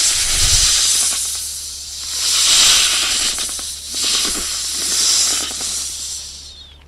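Snake hissing in threat: a continuous breathy hiss that swells and fades about four times before dying away near the end, over a steady low hum.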